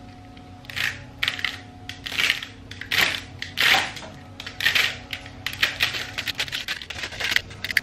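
Rubber bands wound around a pit bike's rear wheel being cut through with a blade, snapping apart one after another in quick, irregular snaps, over a steady low hum.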